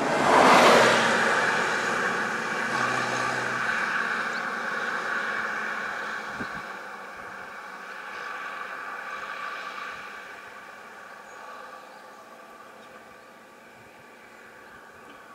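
Motor vehicle engine passing on the road, loudest with a rush about half a second in, then a steady engine drone that slowly fades away.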